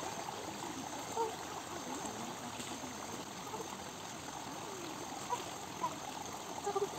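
A steady rushing, water-like background noise, with a few brief sharper sounds over it.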